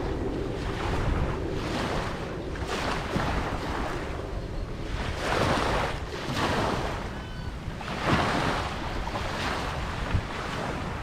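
Ocean surf: waves washing in and breaking in repeated swells, the biggest about five seconds in and again about eight seconds in, over a steady low rumble.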